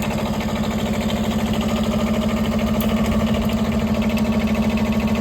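Wood-Mizer LT15 Wide sawmill's engine running steadily at idle, with an even fast pulse and no saw load.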